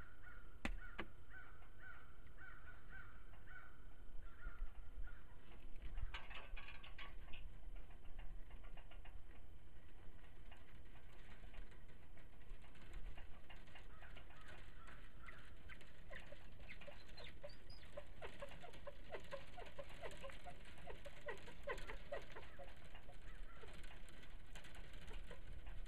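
Outdoor birds calling, opening with a quick series of short repeated calls, with scattered light knocks and clicks, a cluster of them a few seconds in.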